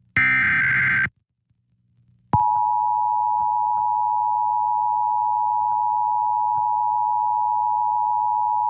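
The last burst of the EAS SAME digital header, a harsh warbling data squawk about a second long, then a short gap, then the Emergency Alert System two-tone attention signal (853 and 960 Hz) starting a couple of seconds in and sounding steadily. This is the alert sequence of a required monthly test.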